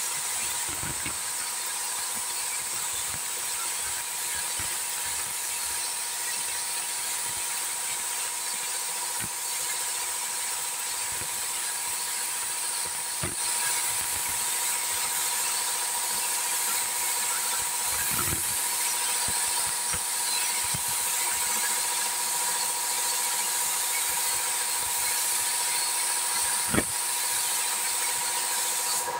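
Air spray gun hissing steadily as it lays top coat on a truck cab roof, with a few faint clicks and one sharp click a few seconds before the end. The hiss stops right at the end.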